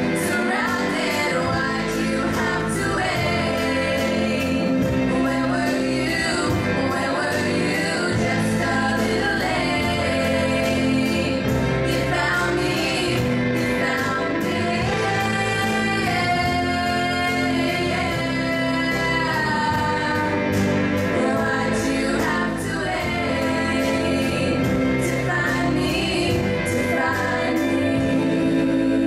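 Live pop song: three female singers singing together into microphones, with a band accompaniment that includes keyboard.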